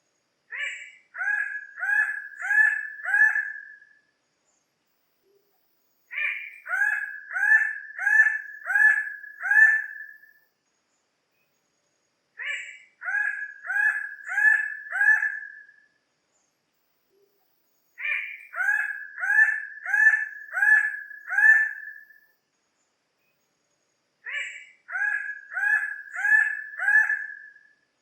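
Bird-of-paradise calling: a phrase of about five short, loud notes, each bending in pitch, repeated five times at even spacing of about six seconds.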